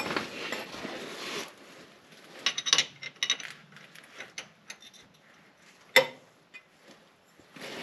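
Metal hand tools clicking and clinking against exhaust fittings while a stubborn nut or bolt is worked loose. A rushing noise fills the first second and a half, and there is one sharp click about six seconds in.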